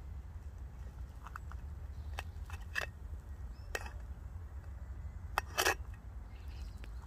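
Scattered sharp clicks and snaps, about eight of them, the loudest a quick double snap near the end, over a steady low rumble.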